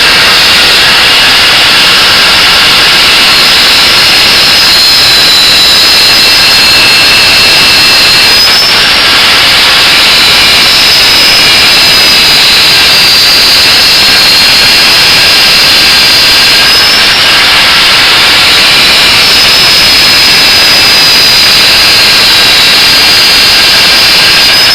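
Angle grinder running loud at full speed, grinding the edge bevel on a leaf-spring steel knife blade; its high whine dips in pitch and recovers a few times as the disc is pressed onto the steel.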